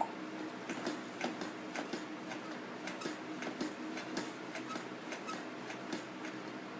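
Light, irregular clicks, about two or three a second, over a steady low hum.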